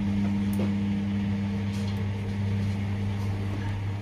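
Washing machine running mid-cycle: a steady, even low hum from the motor, with a few faint ticks.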